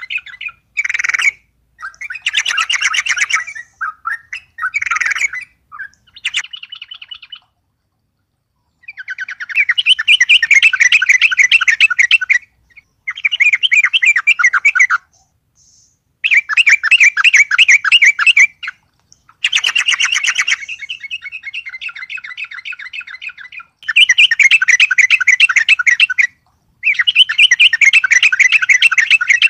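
Yellow-vented bulbul singing: loud bursts of rapid chattering notes, each one to three seconds long, with short pauses between. The bird is singing hard, stirred up by a rival.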